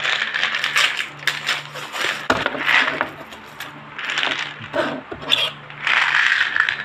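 Tablets rattling inside a plastic bottle of 500 calcium tablets as it is tilted and turned over, in a series of about six short clattering bursts.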